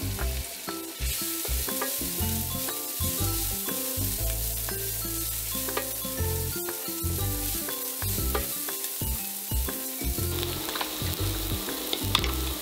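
Sliced lemongrass, garlic and chili sizzling in hot oil in a frying pan, stirred with a wooden spatula, frying until fragrant. The sizzle grows louder about a second in.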